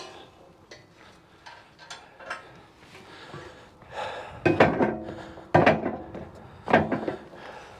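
Timber being handled by hand: a scattering of light knocks, then four loud clunks in the second half, some with a brief ring.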